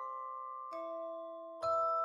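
Background music: a slow music-box tune of bell-like chimed notes that ring on and fade, with a new note struck about two-thirds of a second in and a louder one near the end.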